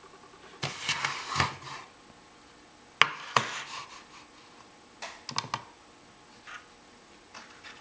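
Handling noises on a tabletop: rustling and clattering about a second in, then a digital pocket scale set down with a sharp knock about three seconds in, and a quick cluster of clicks around five seconds in as its buttons are pressed to switch it on, followed by a few light taps.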